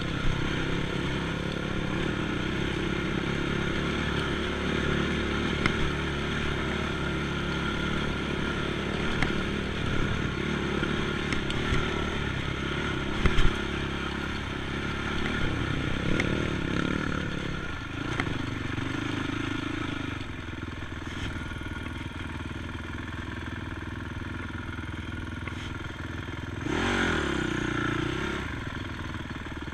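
ATV engine running steadily while riding, with a few sharp clattering knocks around the middle. The engine revs up and back down briefly near the end.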